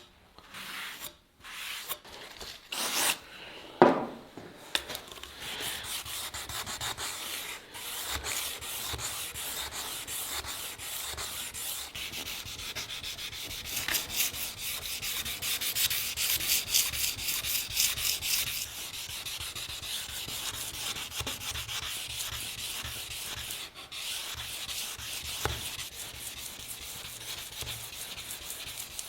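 Hand sanding with sandpaper: quick back-and-forth rubbing strokes that run on steadily after a sharp knock about four seconds in.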